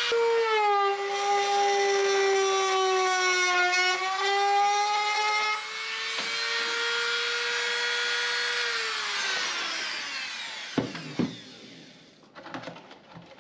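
Handheld rotary tool running at high speed while cutting notches into white trim pieces. Its steady whine sags in pitch as the bit bites in and recovers. About nine seconds in it winds down after being switched off, followed by a couple of sharp knocks.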